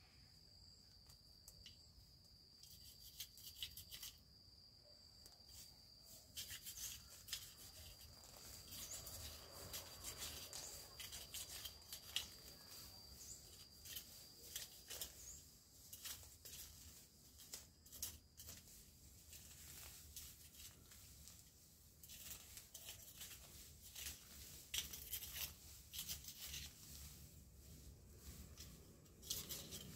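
Faint rustling, snipping and clicking of hands working among leaves and plants. A thin, steady high-pitched insect drone runs through the first half and stops a little past halfway.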